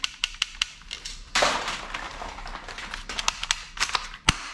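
Hard plastic toy guns being handled and set down in a heap, with many sharp clicks and clattering knocks and a short rustling scrape about a second and a half in.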